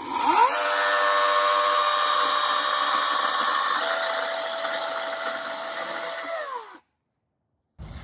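Chainsaw cutting through a tree branch: the motor whines up quickly, runs steadily through the cut with a change in its tone about halfway, then winds down and stops.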